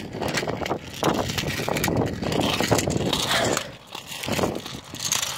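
Wind buffeting and rustling against a handheld phone's microphone as it is carried while walking, in irregular loud gusts that ease off briefly about four seconds in.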